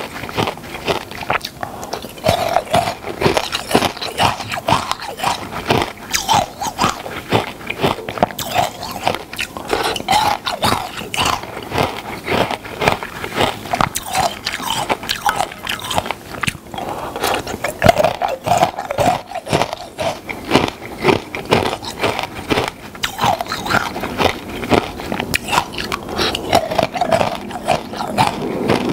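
Close-miked biting and chewing of hard, crunchy food: a dense, irregular run of crunches and crackles, one after another.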